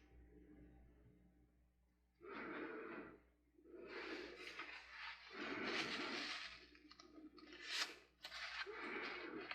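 Several short rushes of blown air, each lasting about a second, with brief pauses between them.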